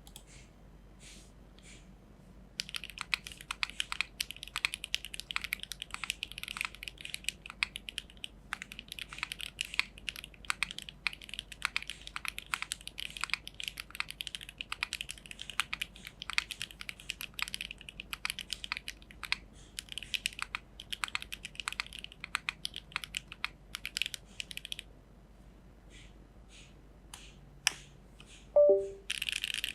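Geonworks F1-8X v2 mechanical keyboard, with an aluminium plate, HMX Sonja HC switches on 22 mm 50 g springs and GMK Trackday keycaps, being typed on. A few single key presses come first, then about twenty seconds of fast, steady typing, then scattered presses. Near the end there is a brief louder noise with a falling tone, followed by a quick flurry of keystrokes.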